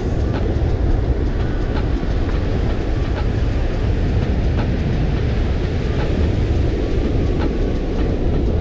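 Strong wind buffeting the microphone, with a faint regular ticking a little more than once a second from a conventional fishing reel being cranked to reel in a hooked fish.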